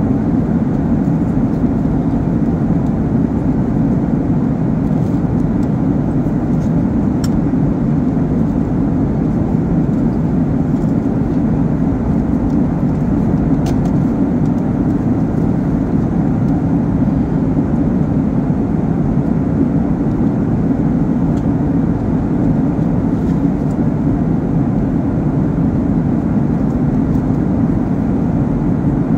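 Steady cabin noise of a Boeing 737 airliner in cruise: engine and airflow noise heard inside the cabin as an even, low rush. Two faint clicks, about a quarter and about halfway through.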